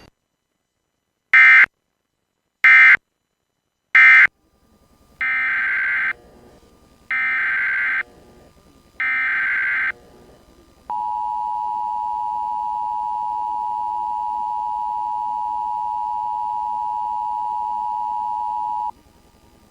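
Emergency Alert System tones. First come three very short bursts of warbling digital data, the end-of-message code. Then come three longer data bursts, the SAME header of the next alert, followed by the steady two-tone attention signal held for about eight seconds.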